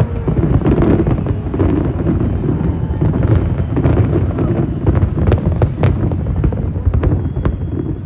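Aerial fireworks going off in a rapid barrage: a continuous low rumble of booms with many sharp crackles, which grow thicker in the second half.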